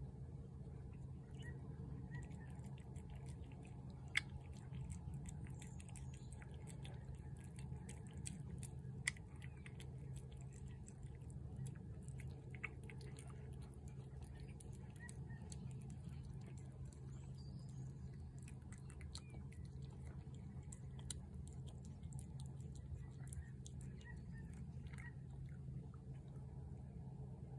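A cat chewing and lapping wet cat food from a plate: faint, irregular wet clicks and smacks over a steady low hum, with a couple of sharper ticks about 4 and 9 seconds in.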